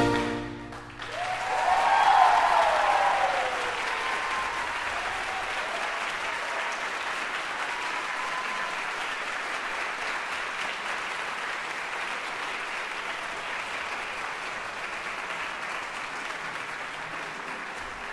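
The band's final chord cuts off about half a second in, then a theatre audience breaks into applause with loud shouts and whoops over the first few seconds. The clapping then goes on steadily, slowly getting quieter.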